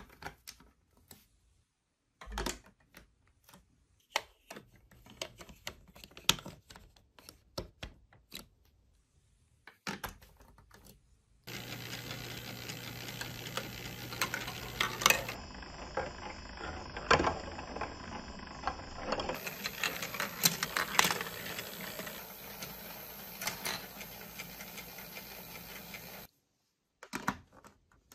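Hard plastic building blocks and marble-run track pieces clicking and knocking as they are handled, fitted together and pressed onto a studded baseplate. The clicks come in irregular bunches, with a steady hiss under them for much of the second half.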